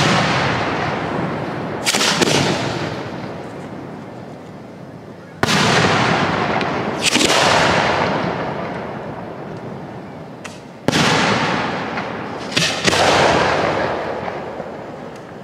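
1.3G display fireworks shells bursting overhead: about seven sharp booms, each trailing off in a long rolling echo over a few seconds, two of them close together near the end.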